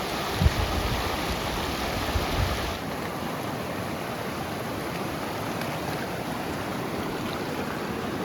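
Snowmelt-fed mountain creek rushing steadily, with a few low thumps in the first couple of seconds.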